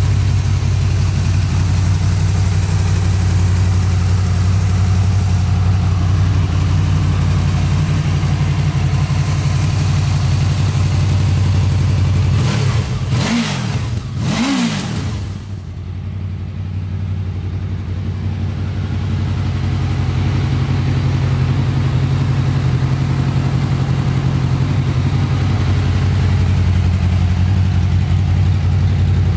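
Honda VFR800's V4 engine idling steadily, revved twice in quick succession about halfway through, each rev rising and falling back before it settles to idle again.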